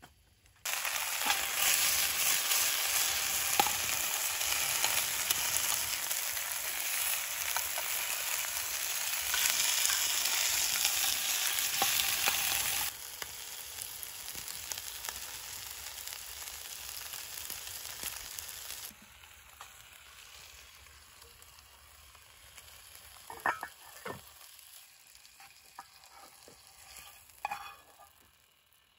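Burger patties sizzling loudly as they fry in a pan. The sizzle drops to a quieter level abruptly twice, about halfway through and again about two-thirds in, with a few light clinks near the end.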